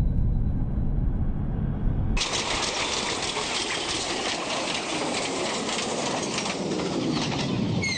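Soundtrack of a video artwork: a low rumble that cuts off abruptly about two seconds in, giving way to a loud, dense hiss with fine crackle. A few short falling chirps come near the end.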